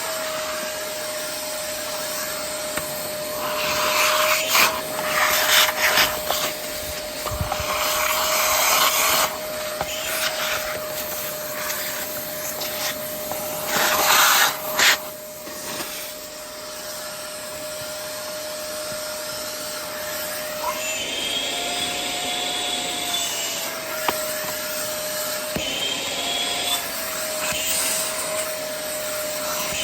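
Vacuum cleaner running with its hose attachment over a stroller's fabric: a steady motor whine, with louder rushing, scraping spells a few times in the first half and the whine briefly rising in pitch twice later on.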